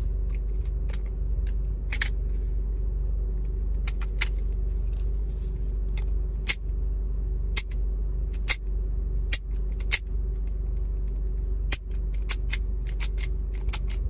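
Crosman SNR357 CO2 revolver's trigger and hammer clicking over and over as the action is worked dry, many sharp metallic clicks at irregular intervals. Under it runs the steady low rumble of the idling car.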